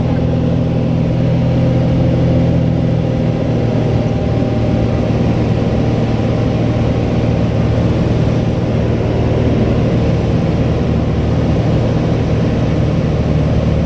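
Light aircraft engine and propeller droning steadily, heard from inside the cabin.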